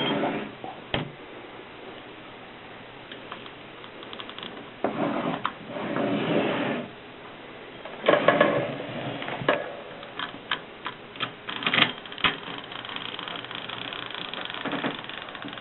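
Antique Mercedes typewriter being worked: scattered sharp key strikes and clicks, with a few longer mechanical rattles about a third of the way in and again past halfway, and a quick run of clicks near the end.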